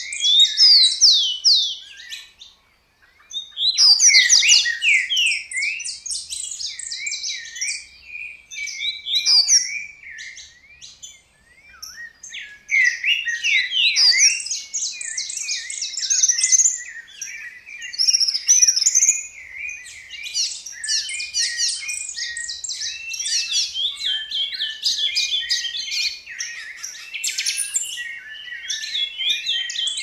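Several wild songbirds of different species singing together in rapid, overlapping chirps and warbles, with short lulls about three seconds in and again near eleven seconds.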